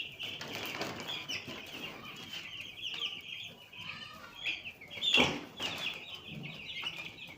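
A flock of chickens calling continuously, many short overlapping calls. About five seconds in there is one brief, louder noise.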